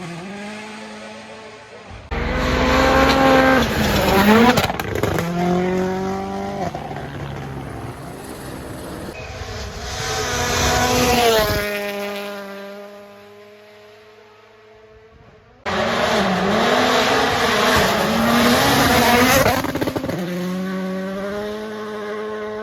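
Rally1 rally cars' turbocharged four-cylinder engines at full throttle on the stage, revving up and dropping through gear changes. About halfway through, one car passes with its engine note falling away. The level changes abruptly in places, so more than one car is heard.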